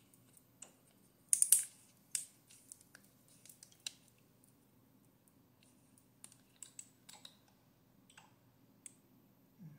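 Sharp plastic clicks and crackles of a dropper-bottle cap being twisted open, loudest in a quick cluster about a second and a half in, then lighter scattered clicks.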